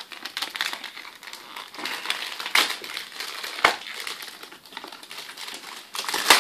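Product packaging being handled and opened, crinkling and rustling throughout, with a few sharper crackles about two and a half seconds in, just under four seconds in, and a louder one near the end.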